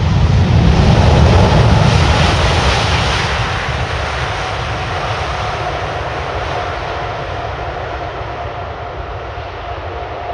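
Landing heavy jet airliner's engines roaring in reverse thrust. The roar is loudest about one to three seconds in, then fades steadily, leaving a steady engine whine as it dies down.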